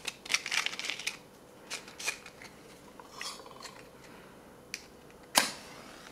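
A small cardboard matchbox handled and slid open, with light rustling and a few small clicks as a wooden match is taken out. About five and a half seconds in, one sharp scratch as the match is struck on the box and flares alight, the loudest sound here.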